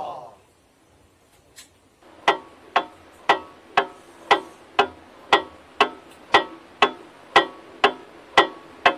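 Steady clock-like ticking that starts about two seconds in: sharp ticks about twice a second, each with a brief ringing tone.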